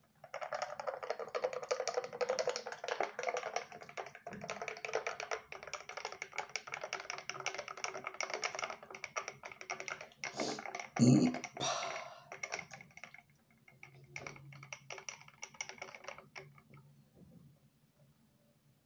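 Close-miked crunchy chewing, a dense fast crackle of small clicks that goes on for about sixteen seconds. A brief louder mouth sound comes about eleven seconds in.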